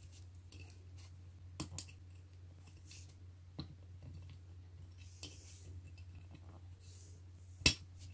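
Small plastic clicks from a toy oven's knobs being pressed and twisted: a quick pair of clicks, a single one midway, and the loudest click near the end, over a faint steady low hum.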